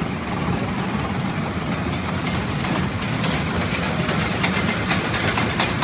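Steady low drone of an idling engine, with a fast, light rattling clatter joining about three seconds in.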